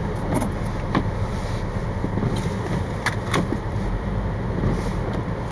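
Small truck's engine running steadily, heard from inside the cab as a low rumble, with a few short clicks and knocks now and then.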